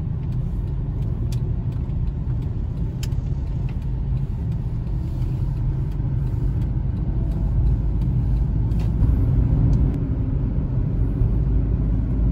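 Road and engine noise inside a moving car's cabin: a steady low rumble, with a few faint clicks.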